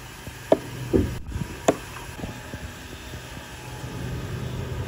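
An axe head striking a wooden log: three knocks in the first two seconds, the middle one a duller thud, over a steady low hum.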